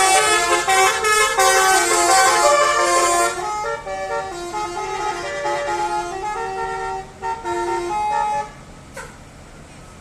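Bus telolet horn playing a tune of quick stepped notes, loud for the first three seconds, then softer, stopping about eight and a half seconds in.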